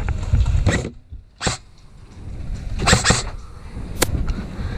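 A few sharp clicks and snaps from an airsoft sniper rifle being worked and fired: one about a second and a half in, a quick cluster around three seconds, and a single crisp click near the end, over low rumbling handling or wind noise on the microphone.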